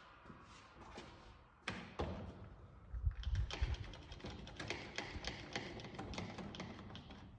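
One-handed trigger bar clamp being squeezed tight on a wooden truss: a quick run of ratcheting clicks, about four or five a second, with a single knock shortly before the clicking begins.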